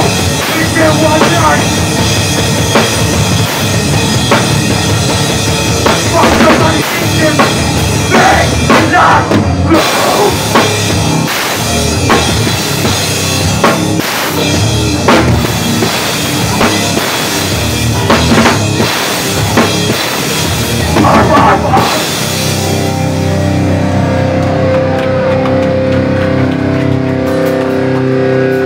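Live rock band playing loud: drum kit, electric guitars and bass guitar together. About three quarters of the way through, the drums stop and the guitars are left holding ringing notes.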